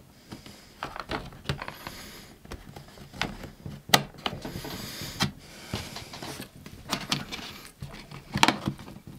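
Bottom cover of a Lenovo ThinkBook 14 Gen 2 laptop being pried off with a pry tool: faint scraping along the seam and a series of sharp clicks as the cover's retaining clips pop loose, the loudest about four seconds in.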